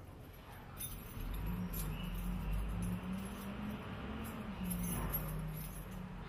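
A bunch of keys jangling and clinking at a front door lock as the door is worked open, with a low steady drone underneath from about a second in.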